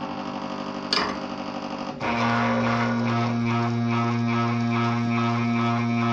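Drive motors of a prototype CNC plasma cutter's rotary axis and linear slide, moving the torch in a dry run with no arc. A steady hum, a sharp click about a second in, then about two seconds in a sudden, louder steady drone with a fast ripple.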